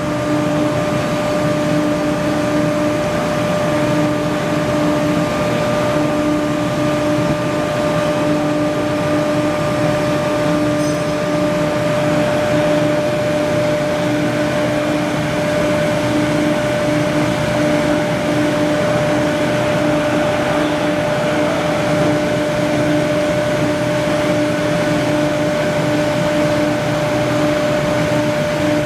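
CNC tube bending machine running with a steady, even hum and several held tones.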